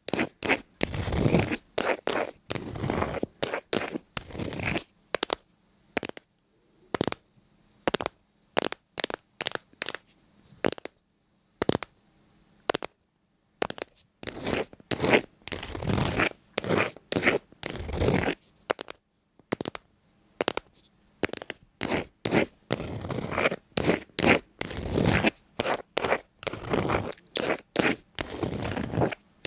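Close-up scratching and scraping sounds in irregular strokes, broken by brief silent gaps.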